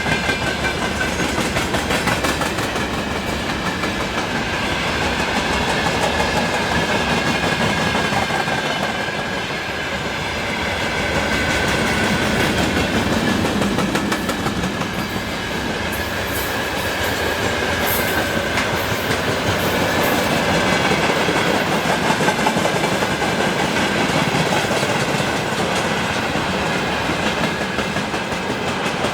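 An electric train rolling past, its wheels clattering over the rail joints without a break, with a steady high ringing tone from the wheels and rails above the clatter.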